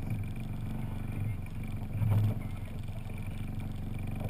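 Outboard motor on a small skiff running steadily, with a louder low swell about two seconds in.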